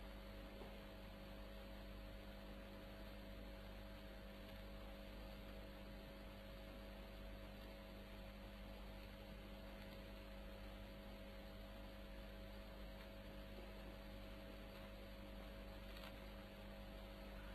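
Near silence: a steady low electrical hum with faint hiss, the background noise of an old recording.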